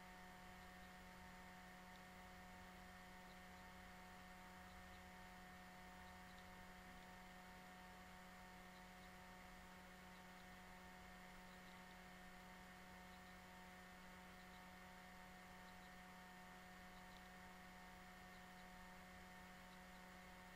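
Near silence: a faint, steady electrical hum with several constant tones over a light hiss, unchanging throughout.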